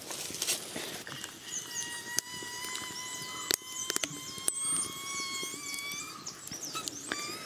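Wood cooking fire crackling with scattered sharp pops. About a second in, a thin whistling tone starts and holds, slowly rising in pitch, with high wavering squeaks above it.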